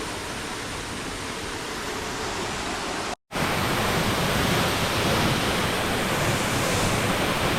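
Steady rushing of a waterfall on a rainforest creek. It breaks off for an instant about three seconds in and comes back a little louder.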